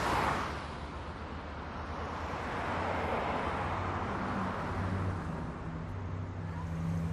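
Road traffic: passing cars make a rising and falling whoosh of tyre and engine noise, one right at the start and a longer one through the middle, over a steady low hum.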